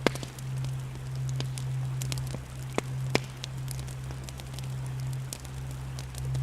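Campfire crackling, with scattered sharp pops of burning wood over a soft hiss, above a low steady hum that swells and dips.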